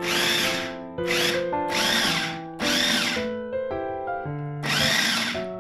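Electric food chopper with a glass bowl shredding boiled chicken, run in pulses: about five whirring bursts of roughly a second each, one of them very short, with a whine that rises and falls in each burst.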